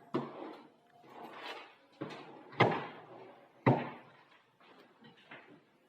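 Aluminium kitchen cabinet doors being opened and shut: four sharp knocks in the first four seconds, the loudest two a second apart, then a few fainter clicks.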